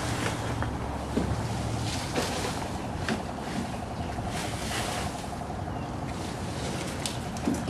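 Outdoor ambience with wind rumbling on the microphone of a handheld camera, a few sharp handling clicks, and a faint steady hum for a few seconds past the middle.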